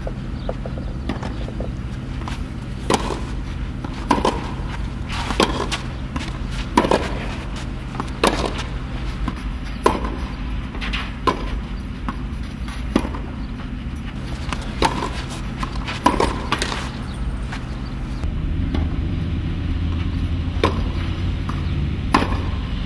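Tennis balls being struck by rackets and bouncing on a clay court: sharp hits every second or two, over a steady low hum.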